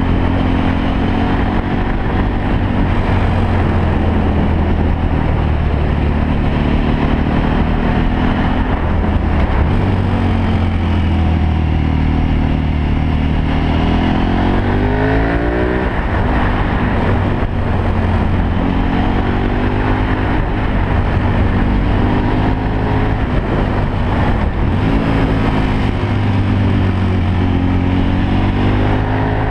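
Motorcycle engine heard on board, its pitch rising and falling again and again as it accelerates and eases off, with a few steeper rising revs around the middle, over a steady rushing noise.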